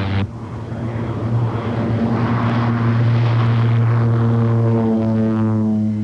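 Single-engine propeller plane running at full power on its takeoff run: a steady, pitched engine drone. The sound drops away sharply just after the start, then builds back up with a rising wash of noise as the plane lifts off.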